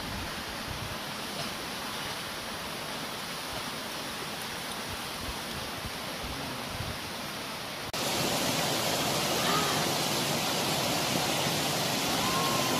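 Stream and small waterfall rushing over rocks, a steady noisy wash; about eight seconds in it jumps suddenly louder and brighter.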